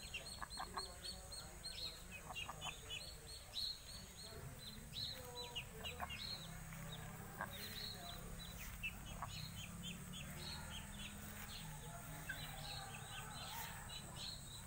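Flock of helmeted guineafowl calling, with quick runs of short, high, harsh notes.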